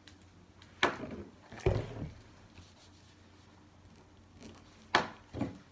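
A few sharp taps and knocks on a wooden tabletop as a pen and paper forms are handled and written on: two about a second in, two more near the end.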